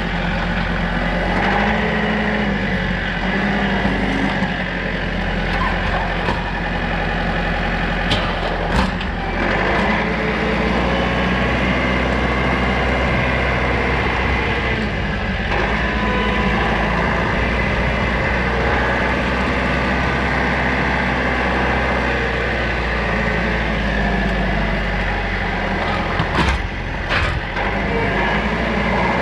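Rural King RK55 tractor's diesel engine running steadily, driving a PTO stump grinder, with a few sharp knocks about eight to nine seconds in and again near the end.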